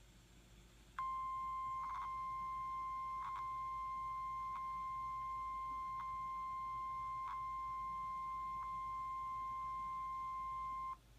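NOAA Weather Radio 1050 Hz warning alarm tone: one steady, high, pure tone about ten seconds long that starts about a second in and cuts off sharply near the end, signalling that a warning message follows. Faint clicks of static break in roughly every second and a half.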